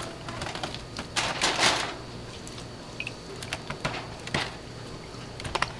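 Pieces of corn on the cob dropped by hand into a disposable aluminium pan of buttery liquid: scattered light knocks and clatters, with a louder noisy rustle about a second in.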